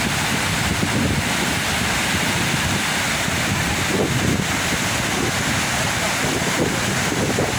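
Steady rush of Rathna Waterfall's falling water, with wind buffeting the microphone in a low rumble.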